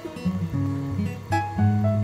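Background music: acoustic guitar picking a light, bouncy melody over a bass line.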